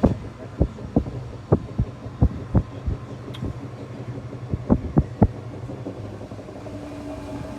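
Train heard from inside a carriage: a steady low running hum with irregular knocks and clacks of the wheels over rail joints, which die away in the last couple of seconds.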